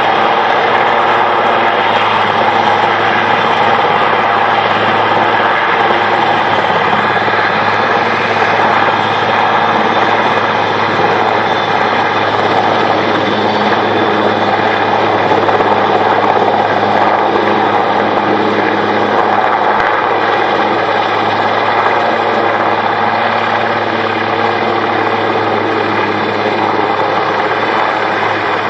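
Twin-turbine Puma-family military transport helicopter hovering and moving slowly at low height close by: a steady, loud mix of rotor beat and a high turbine whine.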